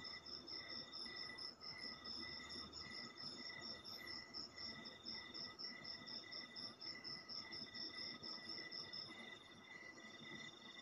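Several night insects calling at once, each a rapid pulsing trill at its own pitch, from low-pitched to high. The highest caller stops about nine seconds in. Faint.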